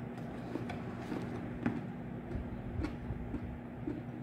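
A steady low hum with a few light clicks and taps, as from handling a meal's food container and utensils.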